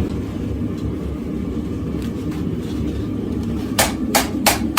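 Propane forge burner running steadily, then near the end four quick hammer blows on hot steel at the anvil: an attempt to set a forge weld fluxed with sand, which does not stick.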